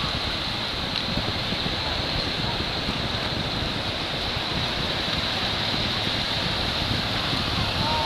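Steady rushing noise of wind on the microphone mixed with small waves washing up on the shore.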